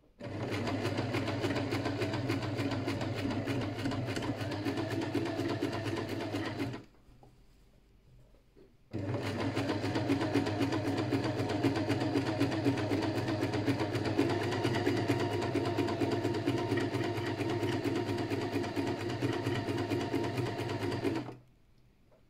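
Electric sewing machine stitching steadily in two runs, the first about seven seconds long and the second about twelve, with a short pause between them; a fast, even needle clatter over a low motor hum.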